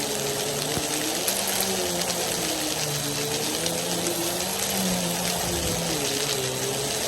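Vacuum cleaner with its brushroll spinning, running steadily with a hum that wavers a little in pitch over a rushing hiss. Faint scattered ticks come through, as dry rice, macaroni and beans are sucked up.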